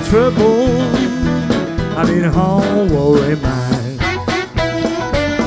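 Live electric blues band playing: an electric guitar lead with notes that bend and glide in pitch, over bass and steady drum hits.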